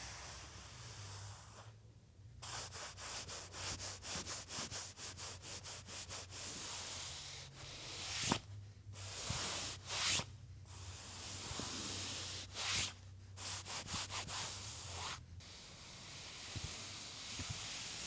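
Hands rubbing and brushing across a large painted canvas in quick repeated strokes, with a few longer, louder swishes in the middle. The strokes start a couple of seconds in and stop a few seconds before the end, over a faint low hum.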